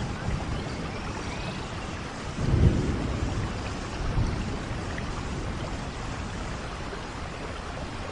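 Steady rain falling, with low rumbles of thunder: the loudest swells up about two and a half seconds in, and a smaller one follows about four seconds in.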